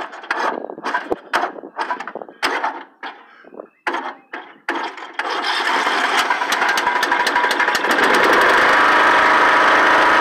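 John Deere riding mower's engine starting about five seconds in, then running with a fast, even firing beat and growing louder as it comes up to speed. Before it, a few seconds of short scattered sounds.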